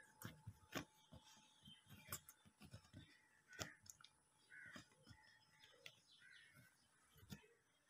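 Near silence: faint scattered taps and scuffs, with a few short, faint bird calls.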